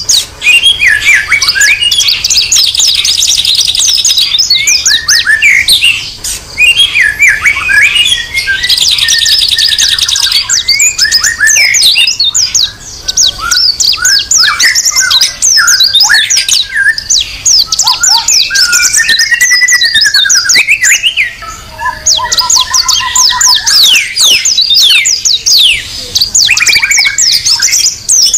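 Bornean white-rumped shama (murai batu) in full, continuous song: a fast, unbroken run of whistled sweeps and chirps, with two stretches of rapid buzzy rattle, pausing only briefly three times.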